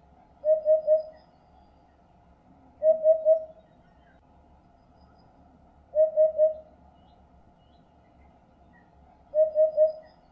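Eurasian hoopoe singing its hollow hooting song: four phrases of three quick, low 'oop-oop-oop' notes, about three seconds apart.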